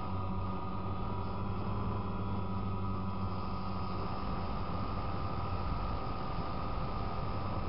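DJI Phantom quadcopter's electric motors and propellers whirring steadily as it hovers, picked up close by its onboard camera, with a constant hum.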